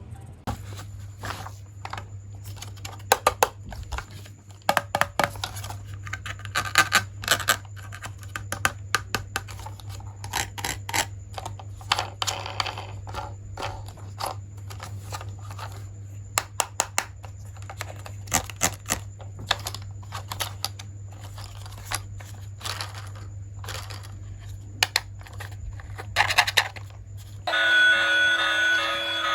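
Hands opening toy packaging: irregular scraping, tearing and clicking of cardboard and plastic over a steady low hum. Music with steady tones comes in near the end.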